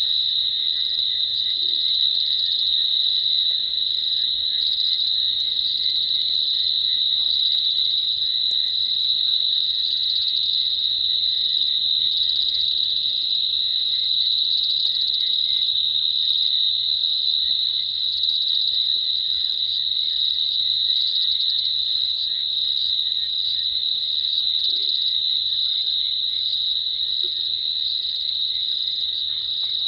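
Crickets trilling in a continuous chorus that holds one steady high pitch, with scattered faint higher chirps.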